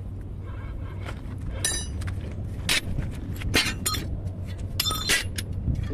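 Irregular metallic clanks and clinks: several sharp, ringing strikes of steel on steel from tools and leaf spring parts being handled during leaf spring repair, over a steady low hum.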